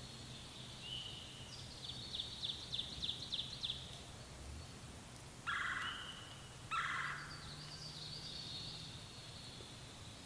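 Wild turkey gobbling twice, about a second apart, near the middle; these are the loudest sounds. Songbirds sing throughout, with a fast rhythmic trill early on.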